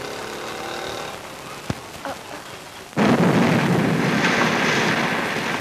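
Motorbike engines running in the street, then about three seconds in a sudden loud explosion whose rumbling roar carries on.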